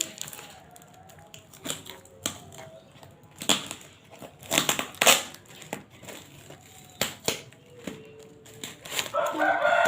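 Packaging being handled: crinkling and crackling with several sharp clicks, the loudest cluster about halfway through. Near the end a voice-like sound comes in.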